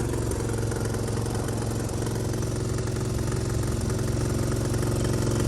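Riding lawn mower's small engine idling steadily.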